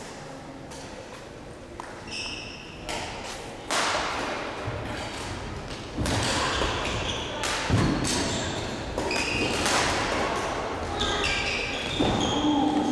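Badminton rally: several sharp, unevenly spaced hits of rackets on the shuttlecock, and players' footsteps thudding on the court, all echoing in a large sports hall, with voices in the background.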